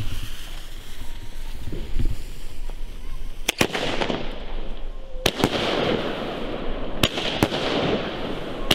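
Argento Carolus consumer fireworks battery: the fuse sizzles for about three and a half seconds, then the cake starts firing. A sharp report comes about every second and a half to two seconds, often as a quick double crack, with hissing and crackling from the gold-tailed, wide-breaking shots in between.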